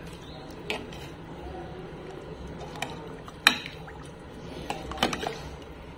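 Metal utensils clinking against a pot and dishes four times, the sharpest about halfway through, with soft liquid sounds of soup being ladled out.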